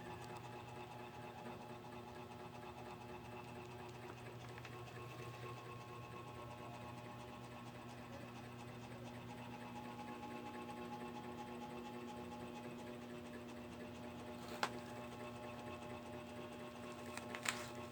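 A steady, faint motor-like hum, with two sharp clicks near the end.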